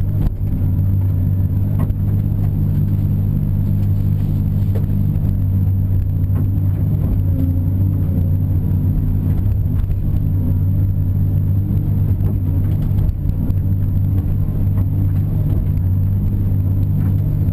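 Caterpillar 330 excavator's diesel engine running steadily while the machine digs, heard from inside the cab as a constant low hum.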